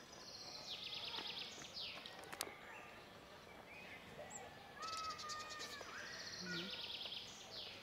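A songbird singing, a short high trilled phrase of rapid repeated notes given three times, with pauses between.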